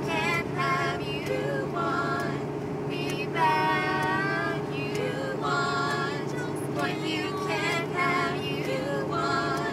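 A singer running vocal warm-up phrases, short sung lines and held, wavering notes repeated about every second or two, over the steady drone of a car driving.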